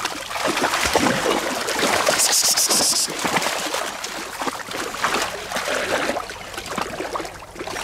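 Splashing and sloshing of legs and paws in shallow muddy water as a man and two dogs wade and scramble about, with a louder hissing splash about two seconds in.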